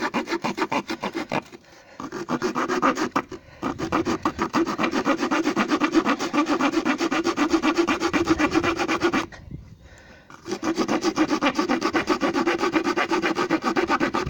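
Victorinox Alox Farmer's small folding saw blade cutting through a wooden broom handle in quick, even back-and-forth strokes. The sawing stops briefly twice near the start and pauses for about a second past the middle before carrying on.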